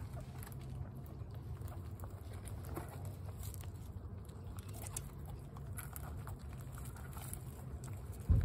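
Guinea pigs crunching hard feed pellets, with small scattered clicks, over a steady low rumble. A brief low thump near the end.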